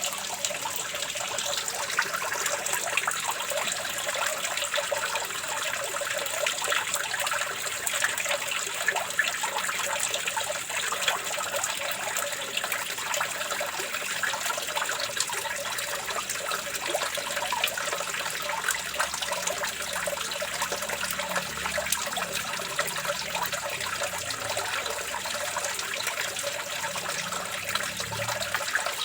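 Running water flowing and splashing steadily, with a dense crackle of small splashes and no break or change.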